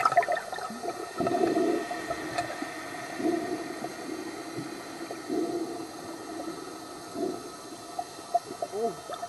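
Muffled underwater sound picked up by a camera held below the sea surface: water sloshing and gurgling around the housing, with a steady faint hum and a few irregular swells.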